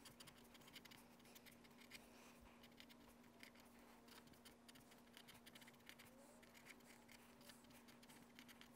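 Very faint scratching of a pen writing on notebook paper, many short strokes, over a faint steady hum.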